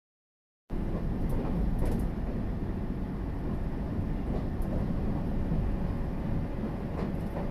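Passenger train running, heard from inside the carriage: a steady low rumble with a few faint clicks, starting abruptly under a second in.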